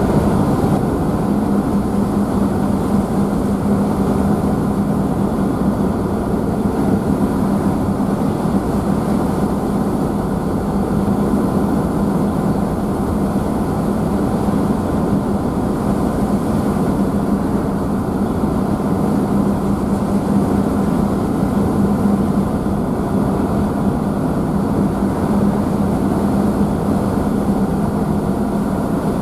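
A car ferry's engines running with a steady low hum, under the constant rush of wake and spray churned up behind the stern, heard from the rear deck.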